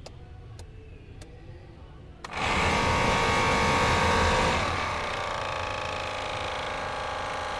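Car heater blower motor: a few switch clicks, then about two seconds in the fan motor starts with a loud, steady whirring whine that settles a little lower in level and pitch a couple of seconds later. The blower makes this noise at high speed, which the mechanic puts down to play in its motor shaft.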